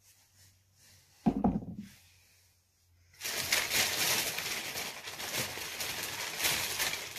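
Thin plastic shopping bag crinkling and rustling steadily as hands rummage through it, starting about three seconds in. Before that, one short knock about a second in.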